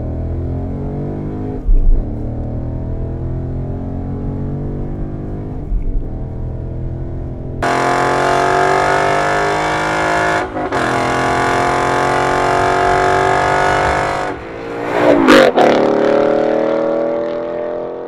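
2015–2017 Ford Mustang GT's 5.0-litre V8 through a Borla ATAK cat-back exhaust, accelerating hard with rising engine pitch and brief dips at the gear changes. About halfway through the sound turns louder and brighter, and near the end the car passes with a quick rise and drop in pitch, then fades.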